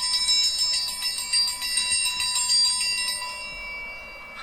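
A triangle rung with rapid repeated strikes, a bright metallic ringing with many high overtones that fades away about three seconds in.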